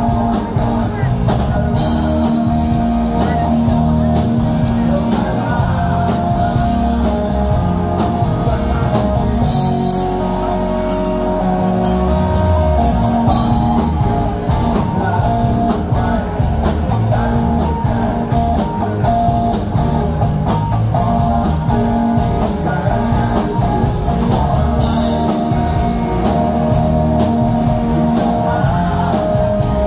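Live rock band playing loud: electric guitar, bass guitar and drum kit, with a man singing.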